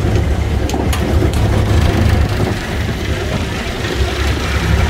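Engine of an open-air tram running steadily as it drives along, a deep, low sound.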